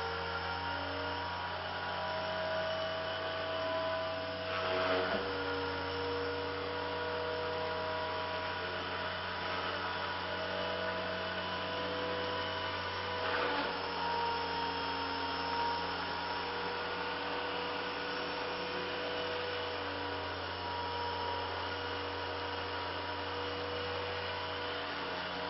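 Walkera 60B micro RC helicopter's electric motors and spinning rotors giving a steady whine over a low hum, the pitch stepping up and down a little as the throttle changes. Two brief noises stand out, about five and thirteen seconds in.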